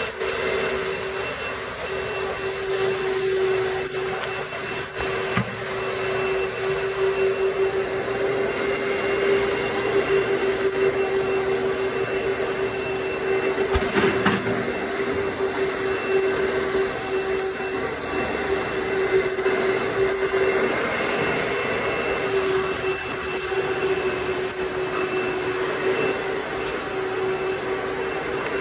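A motor-driven machine running steadily: a constant whine with a rushing hiss over it, and a brief knock about halfway through.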